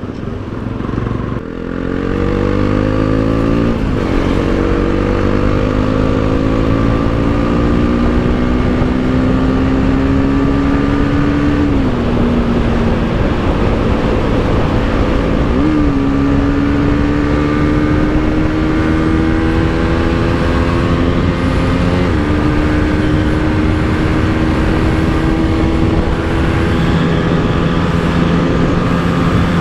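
Bajaj Pulsar NS200's single-cylinder engine accelerating under way, its pitch climbing steadily in each gear and dropping at gear changes about four, twelve and twenty-two seconds in, then holding lower and steadier near the end.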